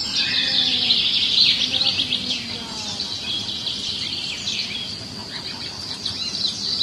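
A dense chorus of small birds chirping, many rapid short chirps overlapping without pause.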